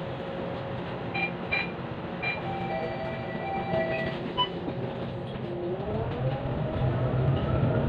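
City bus engine running at a stop, with a few short high tones in the first couple of seconds; about two-thirds of the way in the bus pulls away, its rumble growing louder under a whine that rises steadily in pitch.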